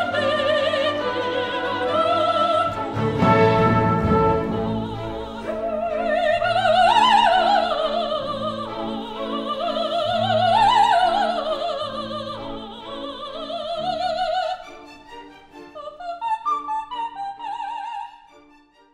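Operatic music: a high voice sings long notes with wide vibrato, rising and falling, over orchestral accompaniment. About two thirds of the way in the singing stops and the music drops to quieter short, detached notes that fade out near the end.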